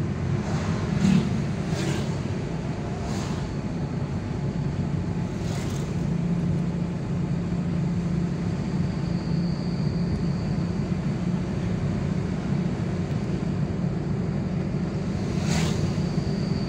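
Steady engine and road hum heard inside a car's cabin while driving, with a few short louder swells as other vehicles pass. A faint high, steady whine joins about halfway through.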